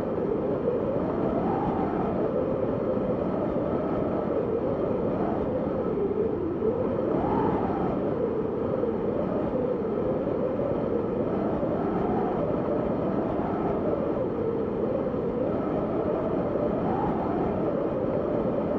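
Snowstorm wind blowing steadily, a rushing noise with a faint whistling pitch that wavers up and down every few seconds.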